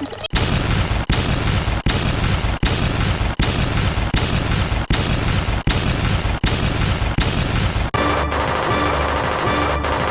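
A loud, harsh, noisy sound effect playing as a loop that repeats about every three-quarters of a second; at about 8 s it switches to a different looped sound carrying a steady tone, with soft pulses about twice a second.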